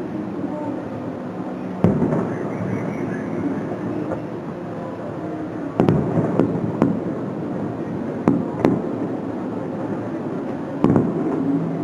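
Aerial fireworks shells bursting: about seven sharp bangs, one about two seconds in, a cluster around the middle and a last one near the end, over a steady background rumble.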